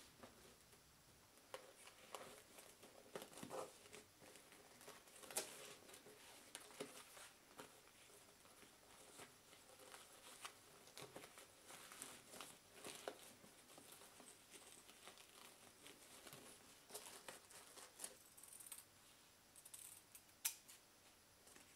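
Faint rustling and sliding of a fabric ribbon over paper-wrapped boxes as a bow is pulled and tied, with small irregular clicks. Near the end, scissors snip at the ribbon end with a sharp click.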